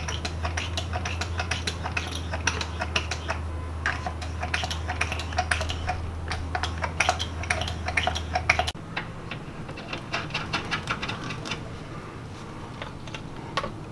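A small fluid pump filling a rear differential with gear oil: rapid clicking and ticking over a steady low hum that cuts off suddenly about nine seconds in.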